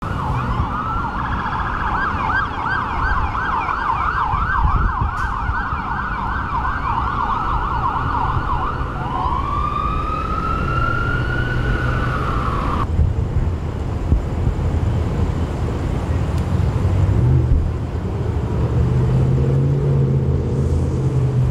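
Emergency vehicle siren on a fast yelp, switching about nine seconds in to a slower wail that rises and then cuts off suddenly about four seconds later. A vehicle engine runs low and steady underneath.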